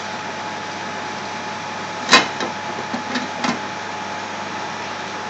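Covered aluminium pot simmering on a gas hob: a steady hiss with a faint hum, a sharp tick about two seconds in, and a few lighter ticks a second or so later.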